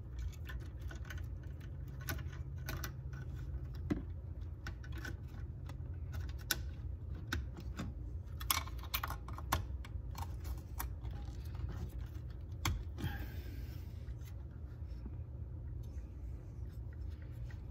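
Irregular small plastic clicks and rattles of bulb sockets and wire connectors being handled and plugged into the back of a 1976 Corvette instrument cluster, over a steady low hum.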